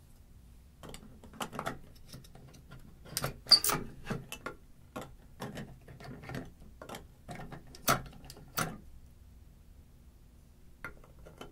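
Plastic parts of a K-Rain sprinkler indexing valve being handled and fitted back together: irregular clicks, knocks and rubbing, the sharpest about three and a half and eight seconds in.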